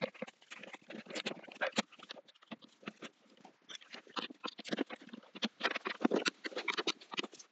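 Irregular clicks, taps and knocks of hand tools and car parts being handled during dismantling, coming in uneven clusters with short pauses.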